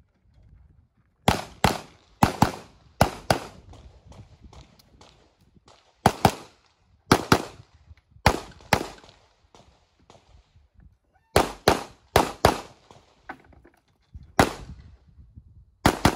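Competition pistol shots, mostly fired as quick double taps, in groups separated by pauses of one to three seconds, about twenty shots in all. Each shot has a short echo.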